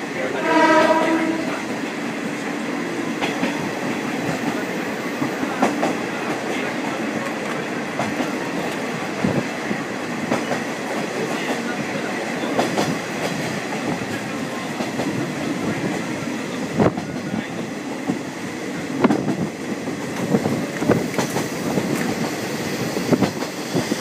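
Kazekko KiHa 48 diesel railcar running along the line, heard from on board: a steady rumble with wheel knocks from the rail joints. A single horn note sounds for about a second, just after the start.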